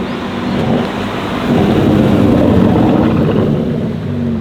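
Aston Martin DBS Superleggera's 5.2-litre twin-turbo V12 exhaust rumbling, growing louder about a second and a half in and easing off near the end.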